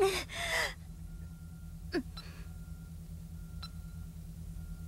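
A young woman's labored, pained gasps for breath, loudest at the very start, then one short strained cry about two seconds in. A faint steady electronic tone with a soft beep about every second and a half runs underneath.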